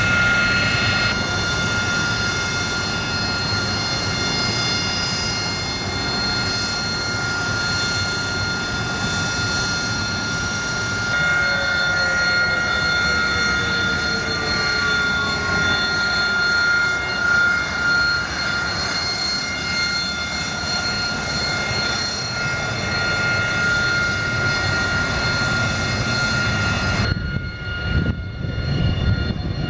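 Jet engines running at taxi power: a steady high whine over a low rumble. About halfway through, a second tone slowly falls in pitch.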